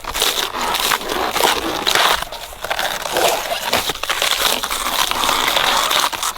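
Layers of a banana plant's trunk being peeled and torn away to reach the heart: continuous crisp, crunching and crackling tears of the fibrous, watery sheaths.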